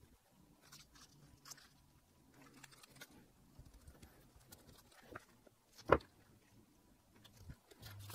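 Faint rustling and crackling of a plastic transparency film and tape being handled by gloved hands, with one sharp click about six seconds in.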